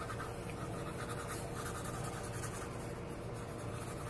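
Pencil sketching lightly on paper, soft scratchy strokes over a steady low hum.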